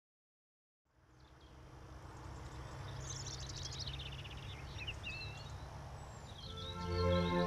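Birds chirping over a low steady hum, fading in after about a second of silence. Music with sustained notes comes in near the end and becomes the loudest sound.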